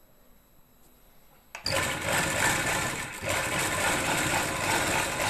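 Sewing machine starting with a click about a second and a half in, then running steadily as it stitches piping along a shirt's folded edge.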